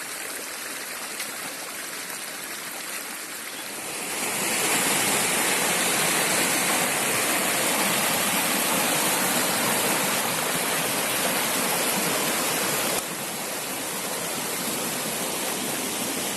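Rushing water of a forest stream, a steady hiss that grows louder about four seconds in and drops abruptly near the end.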